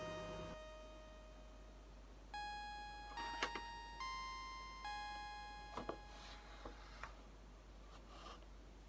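Chime-like sound-effect notes, several separate bell-like tones that each start suddenly and ring out, then a few light clicks later on.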